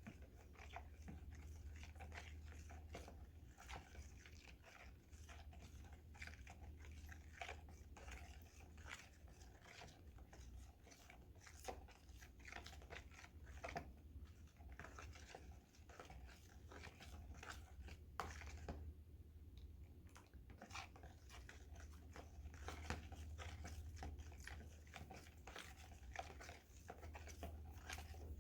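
Faint, irregular scraping and clicking of a utensil stirring a runny mix of clear glue and water in a bowl, over a steady low hum.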